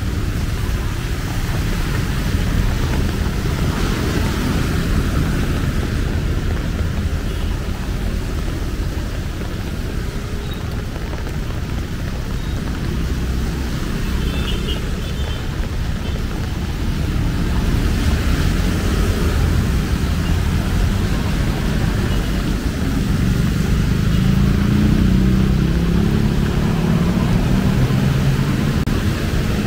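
Rain falling with city traffic: a steady hiss of rain over the low rumble of cars and motorbikes going by. One vehicle passes close near the end.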